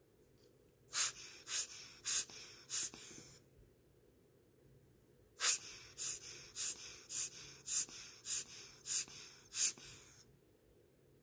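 Hand air blower puffing air onto a mechanical watch movement to kick-start its balance: four short sharp puffs, a pause, then eight more at a steady pace.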